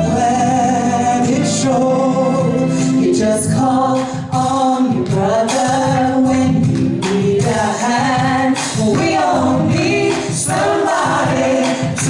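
Two women singing a song together into microphones over musical accompaniment, a live stage performance.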